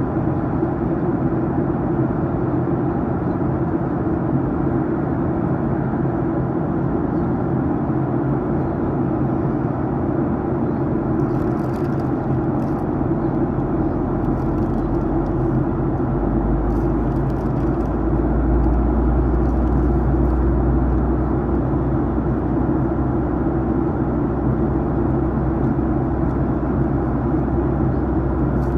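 Steady cabin noise of a Boeing 737-900ER in descent: airflow rush and the hum of its CFM56 turbofan engines. A deeper low rumble comes in about sixteen seconds in and stays, with faint light rattles now and then.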